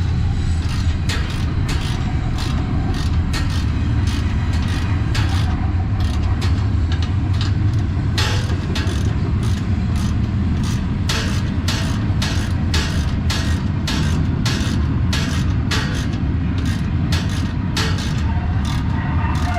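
Train passing close by: a steady low rumble with a run of sharp metallic clacks, a few a second.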